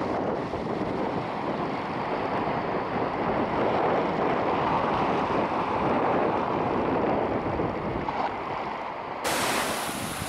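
Small sea waves washing in and around shoreline rocks, a steady rush of surf. About nine seconds in the sound cuts abruptly to a brighter hiss with wind on the microphone.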